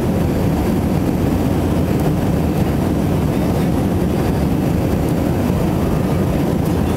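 Steady low rumble of an Airbus A321's jet engines and rushing air, heard inside the cabin in flight.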